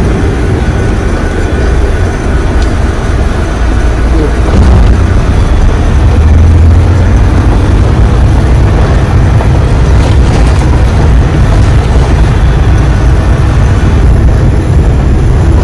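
Dump truck's diesel engine running, a loud steady low rumble.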